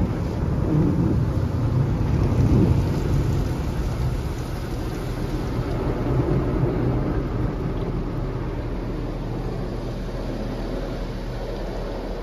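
Automatic tunnel car wash heard from inside the car: a low rumble of water spray hitting the roof and glass, louder for the first few seconds and then gradually easing.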